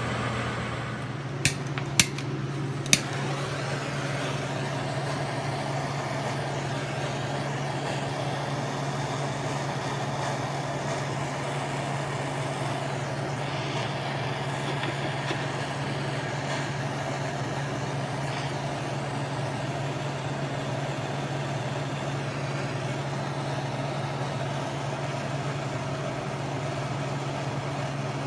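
Metal lathe running steadily, turning the boring head, with three sharp clicks about one and a half to three seconds in.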